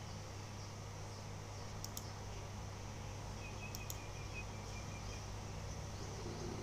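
Room tone: a steady low hum with a few faint clicks, and a faint thin high tone lasting about two seconds in the middle.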